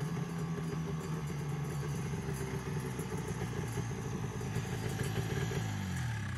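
1976 Yamaha GS340 snowmobile's two-stroke engine running at a steady speed while riding. Near the end its pitch falls as the sled slows to a stop.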